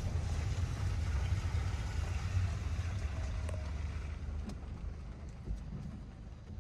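Car cabin road noise on a wet road: a steady low rumble with tyre hiss, fading over the last few seconds as the car slows.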